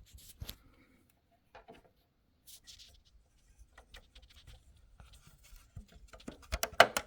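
Handling noises from a projector and its mount being worked by hand: scattered clicks, light knocks and scraping, with a quick run of sharper, louder clicks and knocks near the end.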